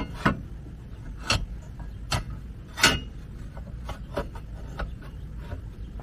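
Scattered knocks and clicks of metal suspension parts being handled as a Jeep JL's lower control arm is worked into place under a drop bracket. The loudest knock comes about three seconds in.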